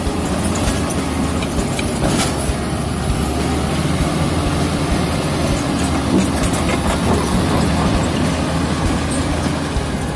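Komatsu D85E-SS crawler bulldozer's diesel engine running steadily with a constant low hum, with a few brief clanks over the top.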